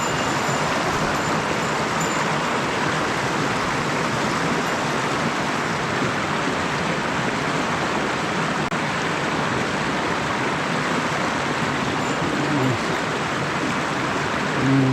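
Small mountain stream's water rushing steadily.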